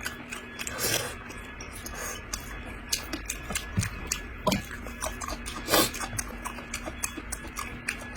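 Close-up eating sounds from a mukbang of a bighead carp head: irregular smacking, sucking and chewing clicks as the fish head is eaten.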